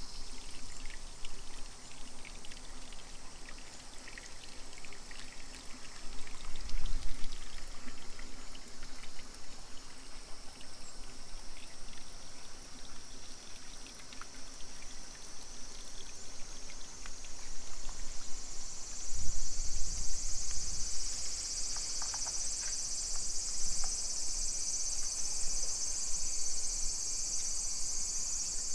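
Insects chirping in a steady high-pitched chorus that grows louder in the second half, over faint outdoor ambience. There are two brief low rumbles, one about a quarter of the way in and one about two-thirds through.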